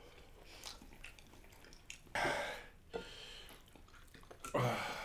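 Close-miked eating sounds: wet mouth clicks and smacks while chewing, with two louder wet slurping mouth noises, one about two seconds in and one near the end.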